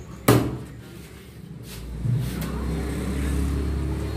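A single sharp chop of a butcher's cleaver into a wooden chopping block, followed by a low rumble that builds from about two seconds in.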